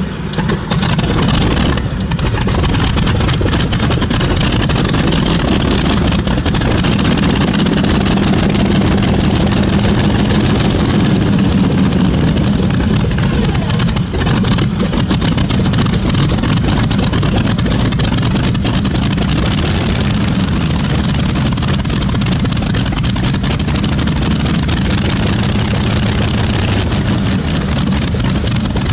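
Radial engine of a tractor-pulling tractor running steadily, just after start-up, with a loud low exhaust note.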